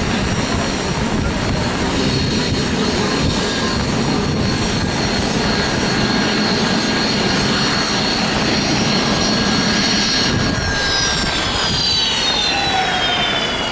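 Jet aircraft engine running with a steady high whine over a loud rumble, the whine gliding slowly down in pitch from about ten seconds in.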